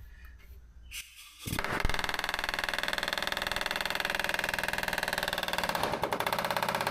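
Pneumatic air hammer running in a rapid, steady rattle, starting about a second and a half in, as its bit is worked under a body side molding on a pickup's cab to pry it off.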